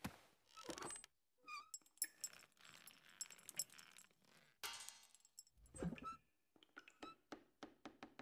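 Kitchenware clattering: ceramic bowls and pots knocked about with bright clinks and rattles, a heavier thump about halfway through, then a quick run of short knocks near the end.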